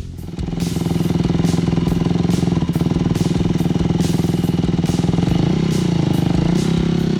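Yamaha YZ250 dirt bike engine catching about half a second in and then running steadily at idle, with a few slight rises and falls in revs near the end.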